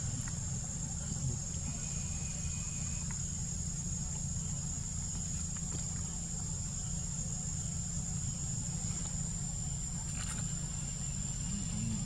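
Insects droning in a steady high-pitched hum, over a constant low rumble.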